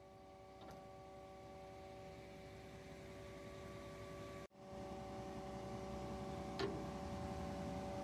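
Faint steady hum of the running concrete pump truck, its engine driving the pump through the PTO, with two light clicks, about a second in and near the end, as the outrigger safety lock is handled. The sound cuts out briefly about halfway.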